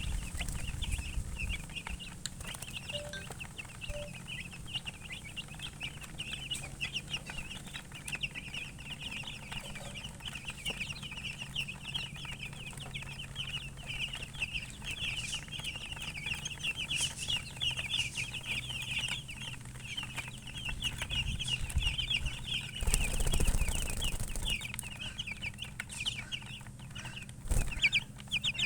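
A brood of baby chicks peeping continuously: a dense chorus of short, high chirps over a low steady hum, with a brief rush of noise about three-quarters of the way through.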